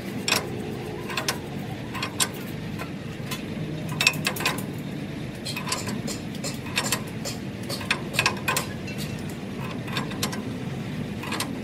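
Irregular metallic clicks and clinks of a socket wrench being worked on a nut of a truck's leaf spring, over a steady low background hum.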